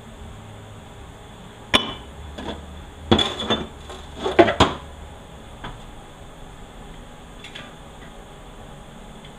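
Metal parts of a 4L80E automatic transmission knocking and clinking against each other and the bench during teardown. A single sharp clank comes a little under two seconds in, then two short bursts of clattering a second or so apart, then a few lighter taps.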